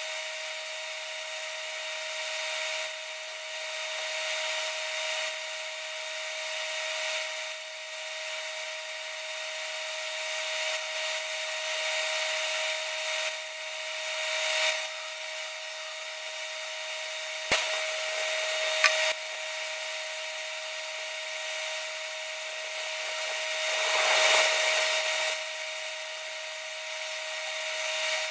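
Handheld grinder running steadily with a constant whine as it grinds down the cut-out steel, cleaning it up for a new insert. Two sharp clicks come about two-thirds of the way through, and the grinding swells louder soon after.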